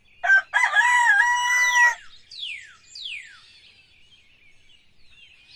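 Rooster crowing once, a drawn-out cock-a-doodle-doo of about two seconds, followed by two short downward-sliding calls. Faint chirping of small birds continues underneath.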